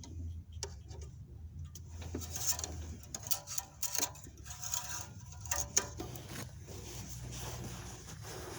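Scattered light clicks, taps and rustling from hands handling parts in the engine bay, over a low steady hum.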